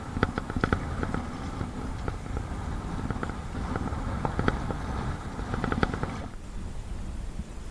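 Strong wind buffeting the microphone, with waves slapping and splashing against a Perception Sound 10.5 kayak and its paddle in choppy, whitecapped water. Bursts of sharp splashes come in clusters, and the splashing stops abruptly about six seconds in, leaving mostly wind.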